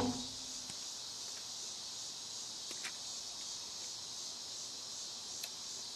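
Night insects chirring in a steady, high-pitched chorus, with a couple of faint ticks.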